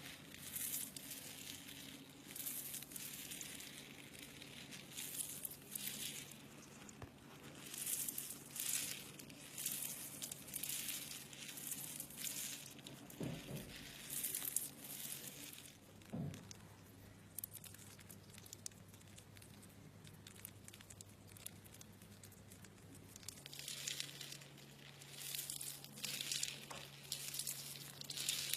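Slime being squeezed and stretched by hand, making soft crinkly, crackling squishes about once a second, with a pause of several seconds past the middle. A faint steady low hum runs underneath.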